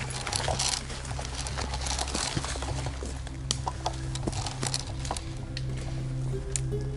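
Footsteps and rustling through forest undergrowth as a player moves quickly on foot, with many irregular cracks and brushing sounds, over steady low background music.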